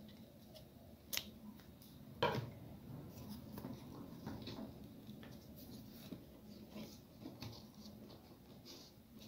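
Faint rustling and light tapping of rolled-newspaper weaving tubes being handled and pushed into a paper weave, with two sharper clicks about one and two seconds in.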